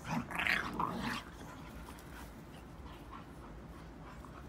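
Vocal noises from a Standard Schnauzer and an English Bulldog wrestling in play: a short cluster of loud, rough sounds in the first second or so, then much quieter.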